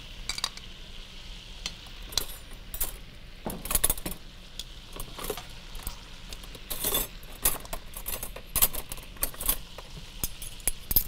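Metal tongs clicking and scraping against a pot as meatballs are turned in sauce, in irregular clinks, over a faint steady sizzle from the hot pan.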